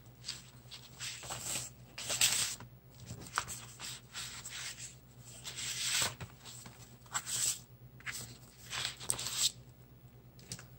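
Paper rustling and crinkling in a string of irregular bursts as painted journal pages are handled, lifted and moved about.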